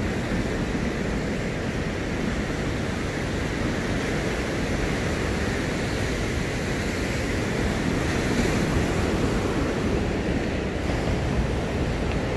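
Ocean surf washing onto a rocky shore in a steady rush, with wind buffeting the microphone.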